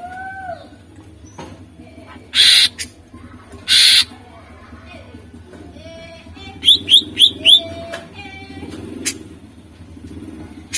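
Greater green leafbird (cucak ijo) in full song: two loud harsh rasping bursts, then a quick run of four sharp whistled notes and several lower whistled glides, over a steady low hum.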